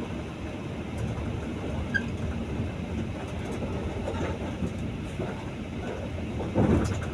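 Steady engine and road rumble heard inside a moving bus cabin while driving. A brief louder burst comes near the end.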